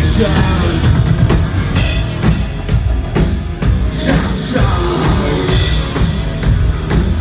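Electro-industrial band playing live and loud: heavy regular drum beats and bass, with the singer finishing a sung line about half a second in.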